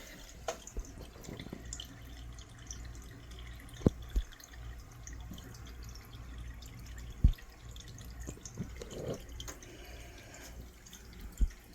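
Water dripping and trickling from an aquarium waterfall, with scattered small splashes over a steady low hum. Four dull thumps stand out, two about four seconds in, one past seven seconds and one near the end.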